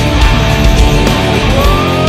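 Loud hard-rock music with distorted guitars and a steady drum beat.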